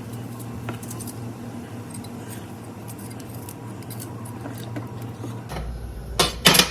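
Kitchen utensils and dishes clinking lightly over a steady low hum, with two sharp clanks close together near the end.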